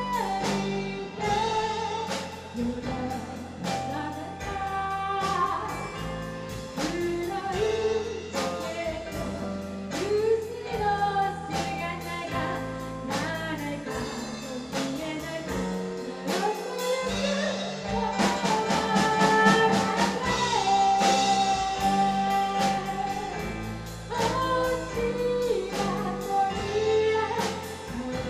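Live rock-pop band playing a song: a woman sings the lead into a microphone over keyboard, electric bass and a drum kit, with a quick run of drum hits about two-thirds of the way through.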